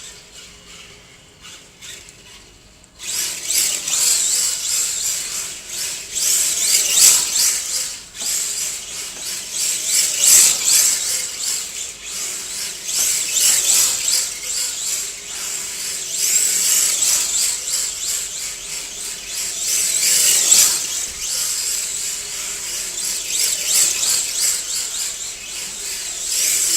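Electric RC drift car running: a high motor whine with tyres scrubbing on the floor, rising and falling with the throttle. It starts suddenly about three seconds in.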